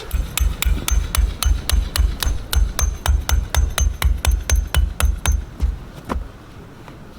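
A hammer striking repeatedly at a steady pace of about four blows a second, each blow a solid thud with a short metallic ring. The hammering stops about six seconds in.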